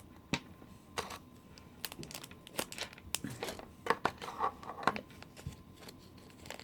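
Packaging of a blind-box toy being handled and torn open: quick, irregular crinkles and crackles, busiest in the middle.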